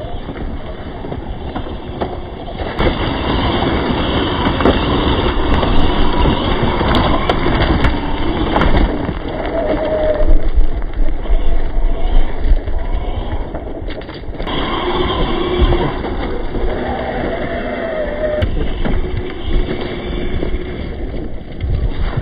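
Losi Baja Rey 2.0 electric RC desert truck with a 3700Kv brushless motor running over gravel: a steady rushing noise with a motor whine that rises and falls in pitch, clearest about ten seconds in and again near the end.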